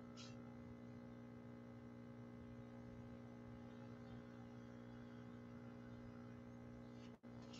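Near silence: a steady low electrical hum, with faint, brief scrubbing sounds of a small paintbrush on a watercolor palette and paper just after the start and again near the end.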